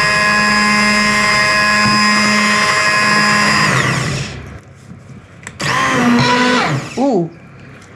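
Electric stick blender running in a pot of leek and potato soup, puréeing it, with a steady high motor whine. About four seconds in it is switched off and the whine falls in pitch as the motor winds down.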